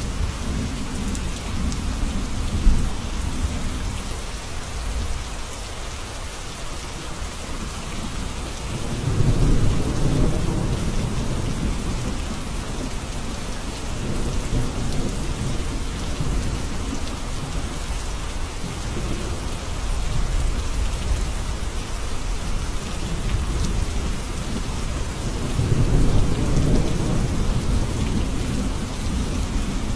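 Steady rain falling, with low rolls of thunder rumbling up about nine seconds in and again near the end.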